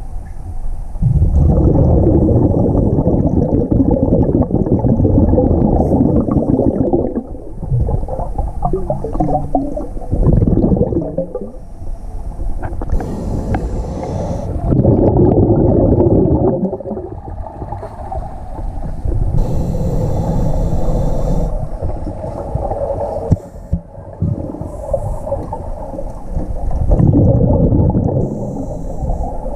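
Scuba breathing through a regulator underwater: long rumbling surges of exhaled bubbles lasting a few seconds each, with short hissing inhalations in the gaps between them.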